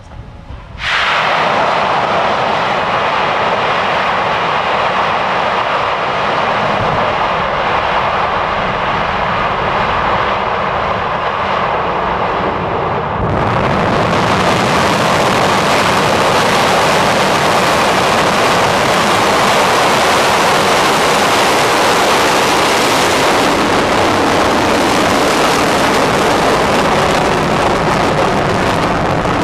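Engines of a Soyuz-U rocket at launch. Loud, steady engine noise starts suddenly about a second in as the engines ignite. It steps up louder and fuller at about thirteen seconds as the rocket lifts off, and keeps on as it climbs.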